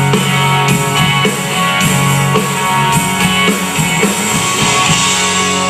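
A live rock band plays the instrumental ending of a song on guitar and drums. About five seconds in the drum hits stop and a guitar chord rings on.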